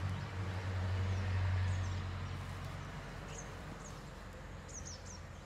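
A steady low hum, loudest in the first two seconds and then fading, with small birds giving several short, high, falling chirps in the background.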